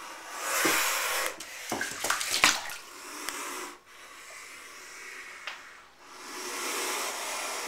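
Juvenile alligator hissing defensively, three long breathy hisses, the last near the end and the longest: the sign of an agitated, threatened gator. Between the first two hisses comes a quick run of sharp knocks, the loudest sound here.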